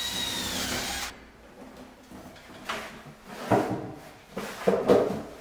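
A cordless drill/driver whirs for about the first second as it backs out a mounting screw, then stops. After that come several knocks and rubbing clatters, the loudest near the end, as the metal vanity light bar is taken down off the wall.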